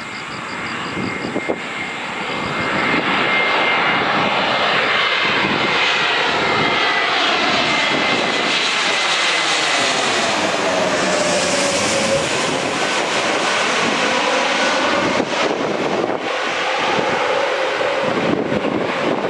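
Airbus A320neo jet airliner on final approach with gear down, passing low directly overhead: the jet engine noise grows loud a few seconds in and stays loud, with a steady whine and a sweeping, phasing sound around ten seconds in as it goes over.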